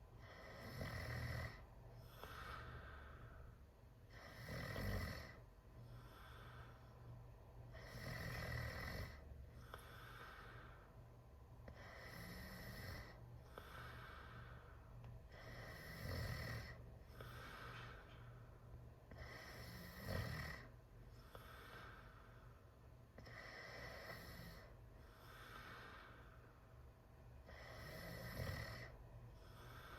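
A teenager snoring with the mouth wide open: a snore on each breath, coming about every four seconds, some breaths noticeably louder than others.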